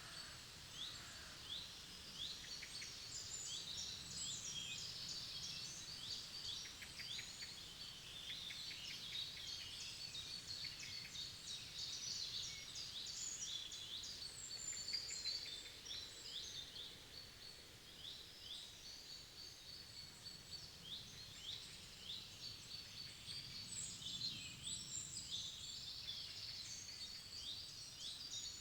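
Forest birdsong: many birds singing at once, a dense chorus of quick, high chirps and trills, over a faint low background rumble.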